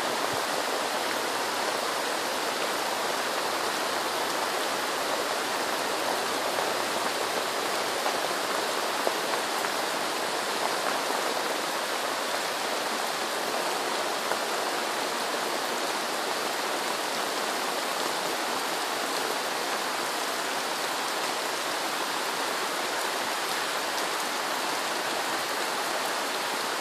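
Heavy rain falling steadily on a palm-thatched roof and the sandy ground around it, an even hiss with a few sharper drips here and there.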